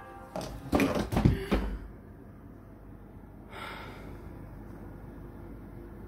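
Heavy hard-backed cover of an old leather-bound Bible being handled and swung open, giving a quick run of knocks and thumps in the first second and a half. A faint brief rustle follows a couple of seconds later.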